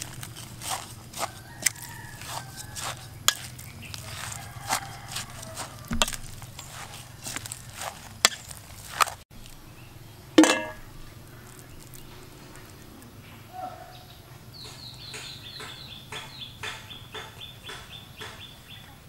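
Hands working spring roll filling of shredded vegetables and minced meat in a stainless steel bowl, with repeated clicks and knocks against the metal. Then one loud short bird call falling in pitch, and near the end a fast run of high chirps.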